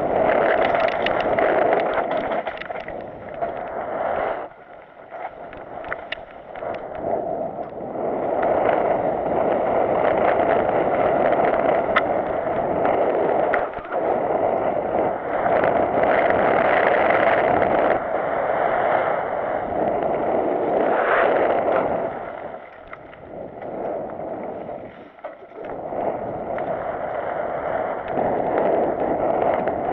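Mountain bike descending a dirt singletrack: wind rushing over an action camera's microphone with tyres rolling on dirt and scattered rattles and knocks from the bike. The noise drops briefly twice, about five seconds in and again a little past twenty seconds.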